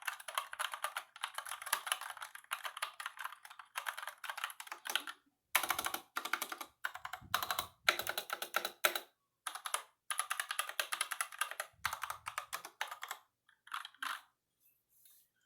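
Typing on a 60% mechanical keyboard with brown (tactile) switches: fast, dense runs of key clicks broken by short pauses, thinning out near the end.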